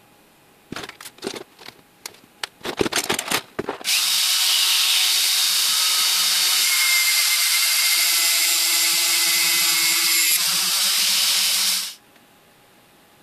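A few seconds of sharp metallic clicks and clinks, then a handheld rotary tool with a cut-off disc running at high speed for about eight seconds before it cuts off abruptly.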